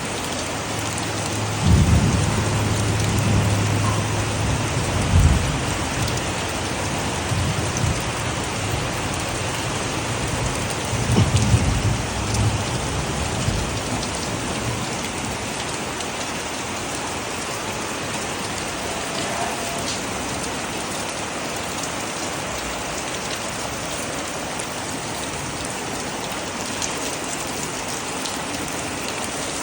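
Heavy rain falling in a steady hiss, with a few low rumbles in the first half.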